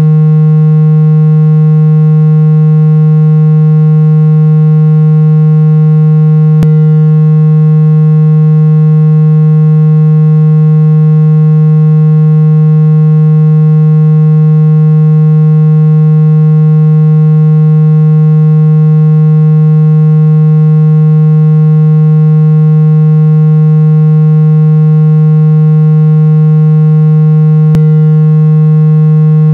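Speaker water-ejection tone: a single loud, low, buzzy synthetic tone held steady without a break, meant to vibrate a phone speaker's membrane and push trapped water out. Two faint clicks, one early and one near the end.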